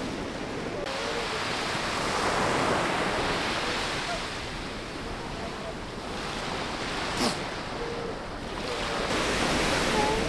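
Surf washing onto a beach, swelling and easing, with wind. A few faint short calls sound through it, and there is one sharp click about seven seconds in.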